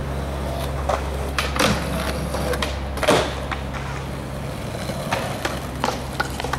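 Skateboard rolling on concrete with a steady low rumble, and a sharp clack of the board a little past three seconds in, followed by a few lighter clacks near the end.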